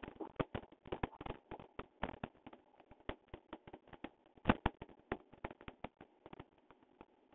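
Skipping rope slapping the paving and feet landing: an uneven run of sharp taps, a few a second, the loudest about halfway through.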